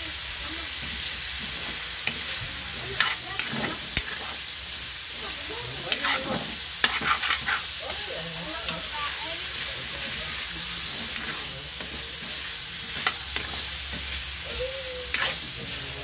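Cubed beef skin and aromatics frying in a steel wok with a steady sizzle, while a metal spatula scrapes and clinks against the pan at irregular moments, in small clusters.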